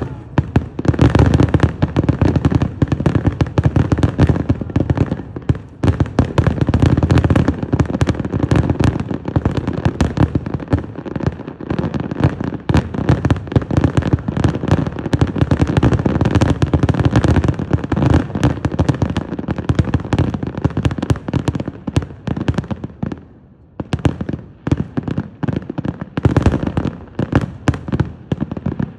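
Aerial fireworks display: a dense, continuous barrage of rapid, overlapping shell bursts, with a brief lull about three-quarters of the way through.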